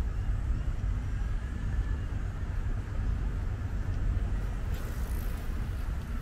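Steady low outdoor rumble with no single event standing out, with a faint thin whistle in the first couple of seconds.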